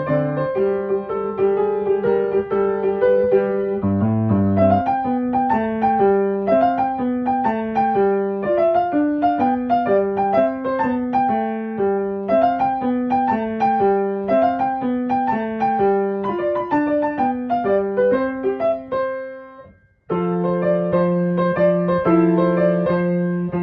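Background piano music playing a repeating melody, fading out about twenty seconds in and starting again a moment later.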